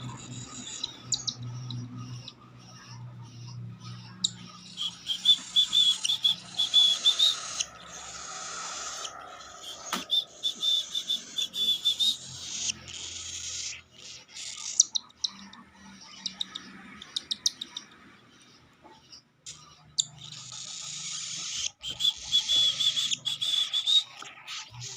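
Baby cockatiel begging while being hand-fed: rapid, pulsing, hissy food-begging calls, coming in several bouts a few seconds long with short pauses between.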